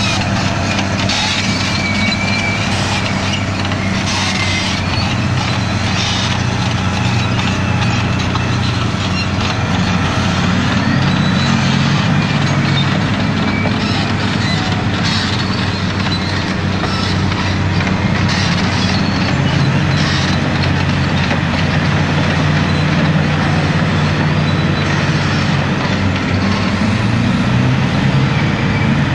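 Caterpillar 631E wheel tractor-scraper being push-loaded by a Caterpillar D10R bulldozer, their big diesel engines running hard under load, with the engine note shifting as they work and scattered metallic clanks.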